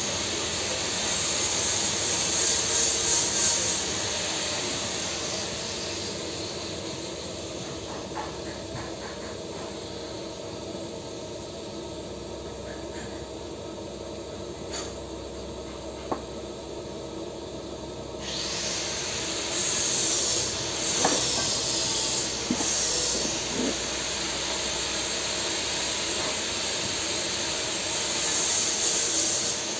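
TIG (argon) welding arc on a steel pipe joint: a steady hiss that gets brighter about two-thirds of the way through, with a single click near the middle.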